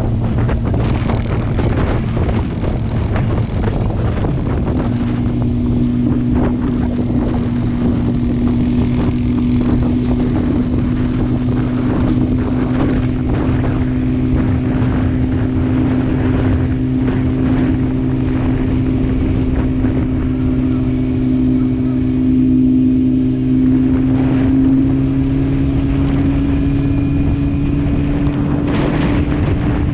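Motorcycle engine running steadily at road speed, with wind buffeting the microphone; the engine note climbs gradually over the second half as the bike gains speed.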